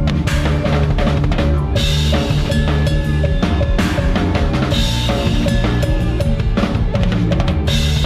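Live band music with a drum kit played hard close up: kick drum and snare driving the beat, with cymbal crashes about every two seconds, over steady pitched parts from the rest of the band.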